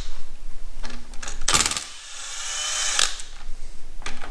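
Cordless drill-driver spinning bolts out of a stripped engine block through a socket: short bursts of the motor with a rapid rattling, the loudest about a second and a half in.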